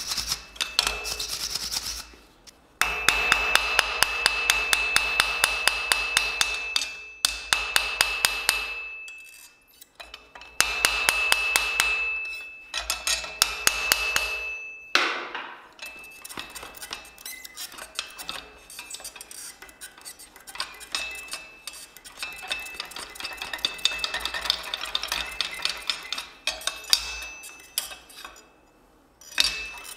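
Hand hammer striking the hot jaws of blacksmith's V-bit tongs on a steel anvil, with a clear ringing tone under the blows. A wire brush scrubs the hot metal for a moment at the start. Then come two fast runs of hard, even blows, separated by a short pause. After that the blows turn lighter and more scattered.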